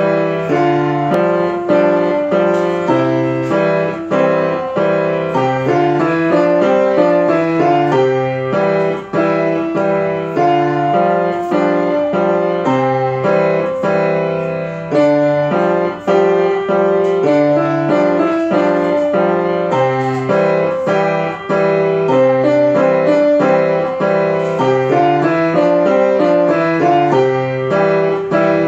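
A child playing a grand piano with both hands: a steady run of notes over a bass line that moves up and down, with only brief breaks between phrases.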